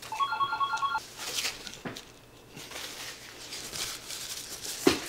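A short electronic notification chime, a few quick beeping tones in the first second, most likely from a phone alerting that a work job has come in. It is followed by soft rustling and handling noises and a sharp click near the end.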